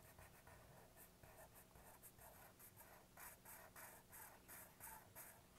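Black felt-tip marker scribbling on paper in short, quick back-and-forth strokes, a few a second, as it colours in a small solid circle. Faint.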